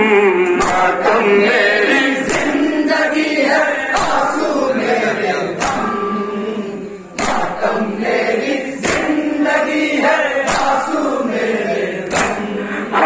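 Men chanting a Muharram noha in chorus, with sharp, evenly spaced slaps of hands on chests (matam) keeping time about once a second.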